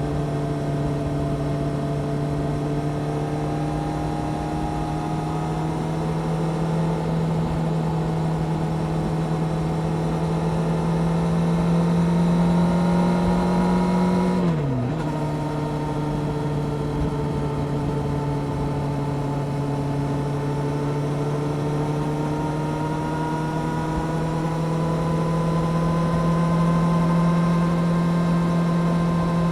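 Honda CBR600F Sport's inline-four engine with a Delkevic exhaust pulling steadily under load, its note climbing slowly. About halfway through it changes up a gear: the pitch drops sharply, then climbs again.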